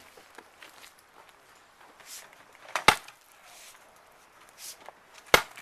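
Two heavy blows of a hand tool on a chunk of buried cement, breaking it out of a trench, about two and a half seconds apart.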